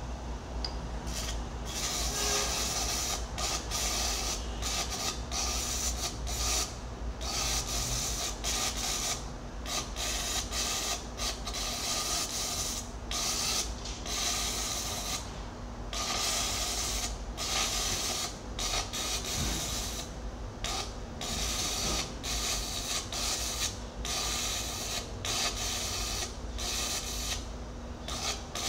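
Electric arc welding on a steel excavator bucket: the arc crackles and sizzles in runs of a few seconds, broken by short pauses, over a steady low hum.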